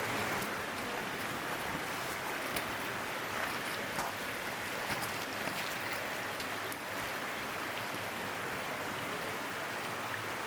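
Shallow freshwater stream running steadily over rocks, a continuous rushing of water, with a few short ticks scattered through it.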